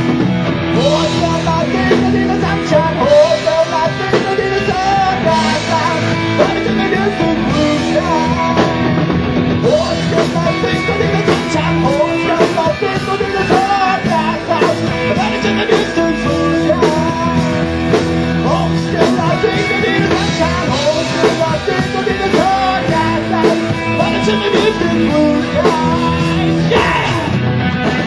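Live rock band playing with electric guitar and drum kit while a male singer sings into a microphone.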